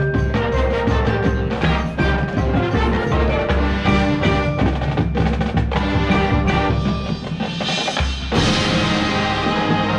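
High school marching band playing its field show: wind instruments over a steady drum pulse and the front ensemble's mallet percussion. Just before the eight-second mark the bass drops out briefly, then the full band comes back in with a loud crash.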